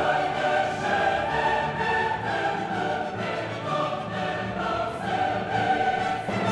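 Background music: a choir singing with an orchestra, in a classical style.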